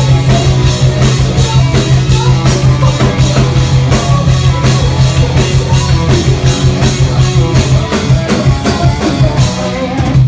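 Live rock band playing loud: electric guitar, bass and rapid drums, with a female singer. The song ends abruptly on a final hit near the end.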